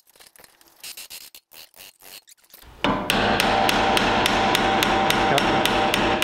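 Light tapping and handling of parts, then about three seconds in a loud power tool starts and runs steadily with a rapid, even pulsing.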